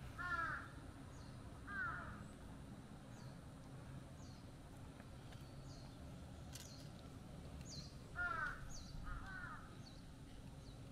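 A crow cawing: two caws near the start and two more about eight seconds in, with faint high chirps of a small bird in between.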